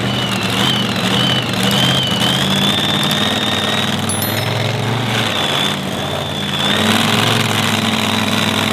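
Engines of modified pulling vehicles running at the pulling track. A high, steady whine sits above the engine note.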